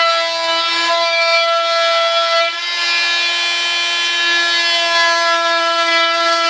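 A hand-held vibrating saw (oscillating cutting tool) running and cutting out a gear door hatch in a model jet part. It makes a steady buzz at one constant pitch, with the upper tones shifting slightly as the blade works.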